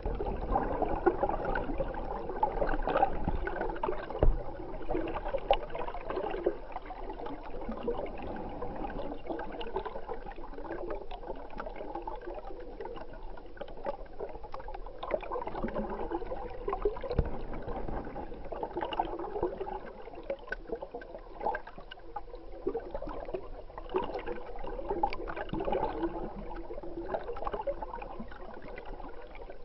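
Stream water gurgling and bubbling, heard muffled through an underwater camera, with scattered small clicks and a few low knocks.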